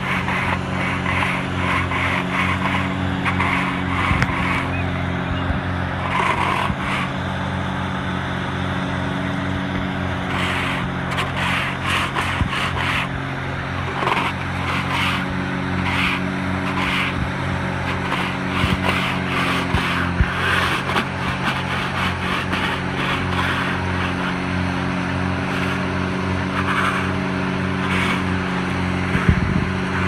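Heavy engine running at a steady speed, with a constant drone of several low pitches. Short, irregular scraping strokes from hand tools on the wet concrete come and go over it.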